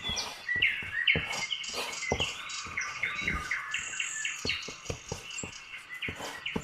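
A songbird singing a continuous run of quick chirps and short whistled notes, with a few soft knocks beneath.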